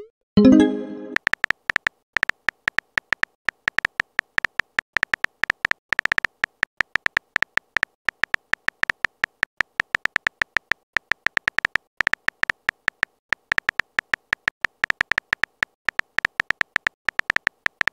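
Rapid clicking of a simulated phone keyboard as text is typed in a texting-story animation, many clicks a second with short pauses between bursts. A short pitched message-sent sound plays about half a second in.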